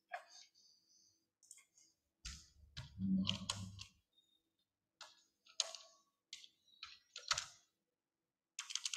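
Faint scattered clicks and taps from a computer keyboard and mouse, with a quick run of clicks near the end. A louder, muffled low bump or rustle lasts from about two to four seconds in.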